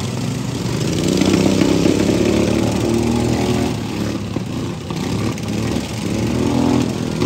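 Several pro-modified riding lawn mower engines running together, their pitch wavering as they rev, getting louder about a second in.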